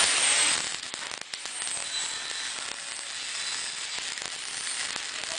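Welding arc crackling steadily, louder in the first half second.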